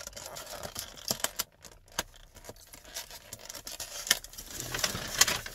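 Rustling and scattered light clicks of plastic takeout packaging being handled, busiest near the end.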